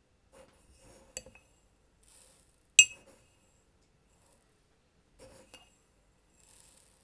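A few light clinks and taps of small hard objects, with near silence between them; the loudest is one sharp clink almost three seconds in.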